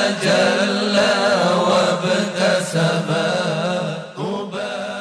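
Arabic nasheed: voices sing a long, wavering wordless melisma over a steady held vocal drone, and the sound begins to fade out near the end.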